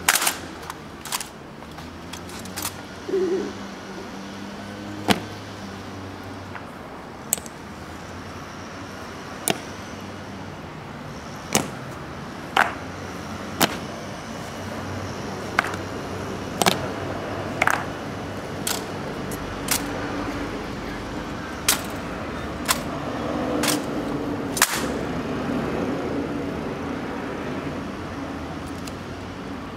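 Honour guard rifle drill: sharp, irregularly spaced clacks and smacks as rifles are slapped, caught and grounded on the stone pavement and boot heels strike, some with a short ring. A steady low background rumble runs underneath.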